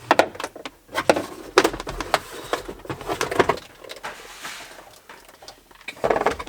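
Irregular clicks and knocks of hand tools and car interior trim parts being handled and worked on, several of them sharp and loud.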